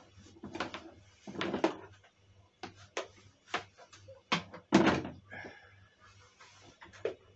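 Scattered clicks and knocks from a corded power drill and its cable being handled and readied, with the drill motor not running; the loudest knock comes about five seconds in.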